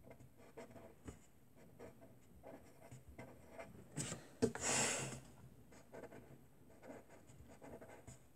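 Handwriting on paper: faint, short scratching strokes of the writing tip. A little past four seconds in comes a louder hiss of about half a second.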